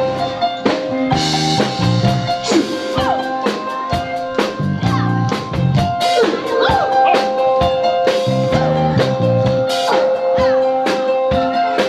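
Instrumental pop music with a steady drum beat and a repeating bass line.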